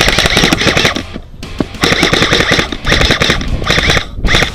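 Several bursts of full-auto airsoft gunfire, each a fast run of sharp cracks. The first lasts about a second and the rest are shorter.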